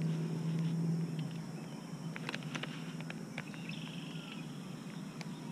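Quiet outdoor ambience at a pond edge: a low hum that fades after about a second, a few light clicks, and a short high call from a bird or insect a little past the middle.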